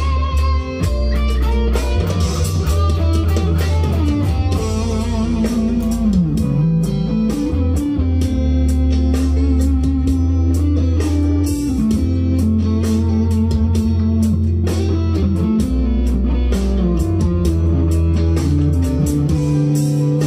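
Leo Jaymz SG-copy solid-body electric guitar with humbucking pickups, played through an amp: a run of picked single-note lead lines over low notes held underneath, with a slide down and back up in pitch about six seconds in.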